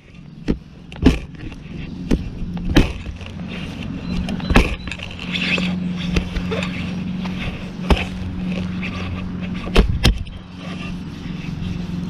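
Digging shovel chopping into sod and soil: a series of sharp, irregular strikes, with a steady low hum underneath from about a third of the way in.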